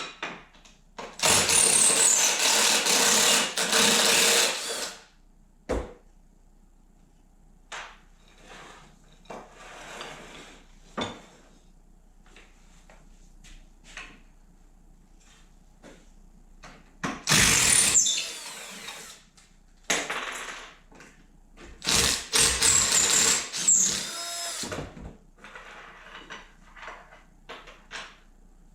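Electric drill running in three bursts of a few seconds each: about a second in, around seventeen seconds in and around twenty-two seconds in. Short knocks and clicks sound between the bursts.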